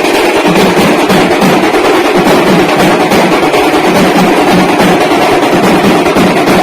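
Drums beating a steady, repeating rhythm, loud and continuous over a dense wash of noise.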